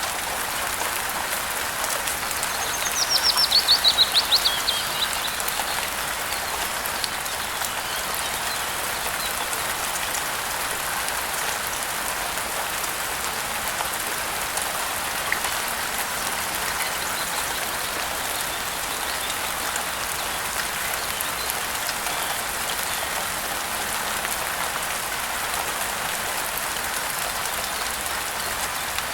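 Steady rainfall hiss. About three seconds in, a bird sings a fast trill of notes that falls in pitch over about two seconds, louder than the rain.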